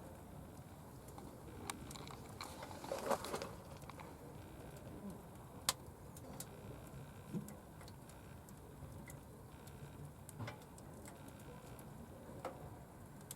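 Wood fire crackling in a portable outdoor wood stove: irregular snaps and pops over a low steady rustle, with a cluster of crackles about three seconds in and one sharp snap near six seconds.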